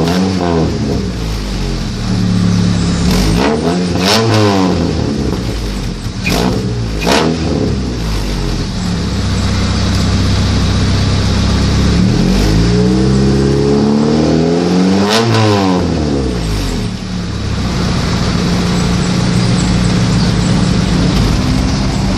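Honda Accord CB7's four-cylinder engine revved with the car standing still: several quick throttle blips in the first eight seconds, then a longer rev that climbs and falls back between about 12 and 17 seconds. It idles steadily in between and after.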